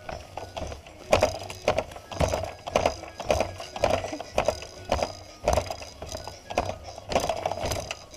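Fisher-Price baby bouncer rattling and knocking as it bounces, about two knocks a second, starting about a second in.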